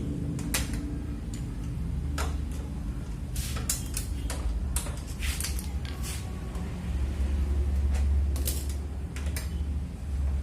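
Scattered sharp metal clicks and clatter of hand tools and parts on a cup-sealer machine under repair, over a steady low hum.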